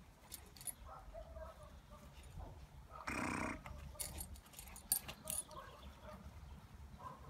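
Vizsla puppy playing with a nylon leash on grass, mouthing and pawing it, with scattered light clicks and rattles from its metal clip. About three seconds in comes one short, loud, voice-like cry lasting about half a second.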